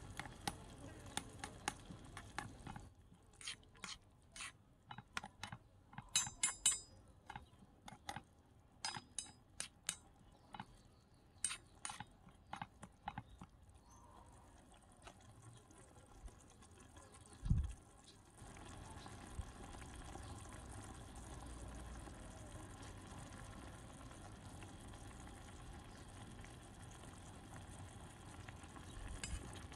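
A small metal spoon stirs soup in a tiny wok, giving many light clinks and taps against the pan, some of them ringing. After a single dull thump, the curry simmers with a steady low bubbling.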